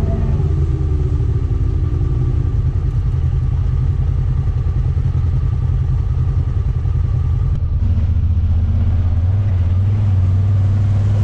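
Side-by-side UTV engine running steadily, its note getting louder about eight seconds in.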